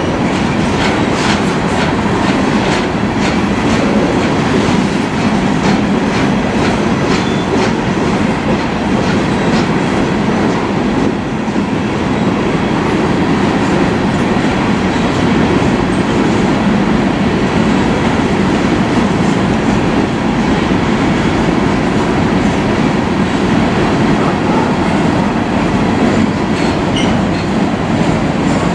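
Empty coal cars of a long freight train rolling past, a steady rumble of steel wheels on rail. A run of sharp wheel clicks comes through in the first ten seconds or so.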